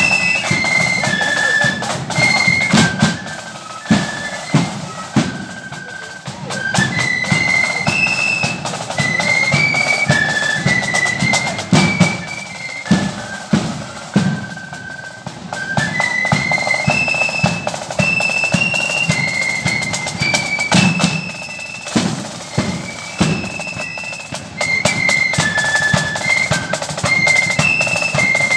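Marching flute band playing a tune: massed flutes carry a high melody over snare drums and a bass drum beating time.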